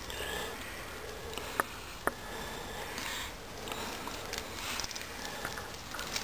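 Scraping and handling noise as coins are worked out of a buried silver case with a knife, with two sharp clicks about half a second apart a little over a second and a half in.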